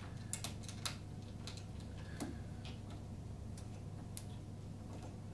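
Light, irregular clicks and ticks as wing nuts are threaded by hand onto the bolts holding a plastic battery box to a lawn mower handle.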